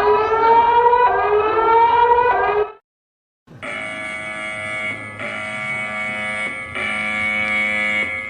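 Emergency alert tones: a repeating rising siren-like sweep that cuts off about two and a half seconds in. After a short gap comes a steady, multi-note electronic alert tone that shifts pitch twice.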